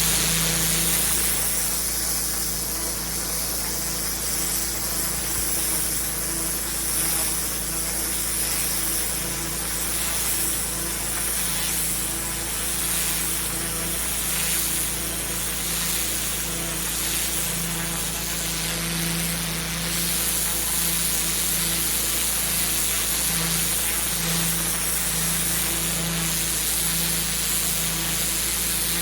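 Pressure washer running steadily, its motor hum under the hiss of a high-pressure water jet spraying onto block paving.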